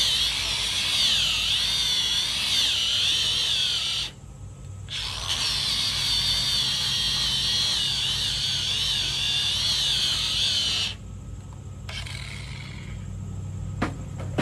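Cordless disc grinder sanding the foam of a 3D archery target, a high whine wavering in pitch. It stops about four seconds in, starts again a second later, and cuts off about eleven seconds in. A single sharp click near the end.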